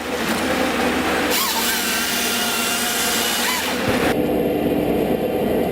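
Power saw cutting through wood for about three seconds, with its motor note dipping as the cut starts and ends, over a running engine. Near the end of the cut the sound changes abruptly to an engine running steadily.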